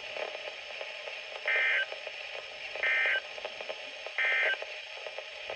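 Emergency Alert System end-of-message signal: three short, identical bursts of SAME digital data tones, a buzzy two-tone warble, with about a second between them, over steady radio hiss. The bursts mark the end of the severe thunderstorm warning message.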